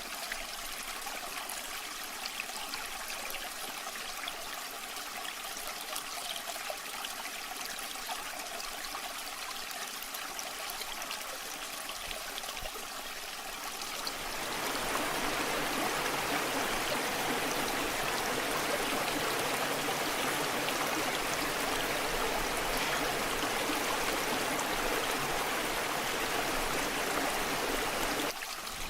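Flowing water of a waterfall, a steady hiss of water at first. About halfway through it changes abruptly to a louder, fuller and deeper flow.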